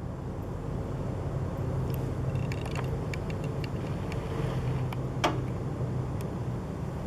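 A steady low hum, the unexplained 'strange sound' the recording was made to capture, with a handful of faint clicks and ticks from about two to six seconds in.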